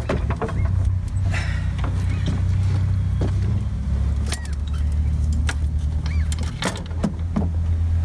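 A steady low rumble with scattered clicks and knocks through it, and a few brief high squeaks.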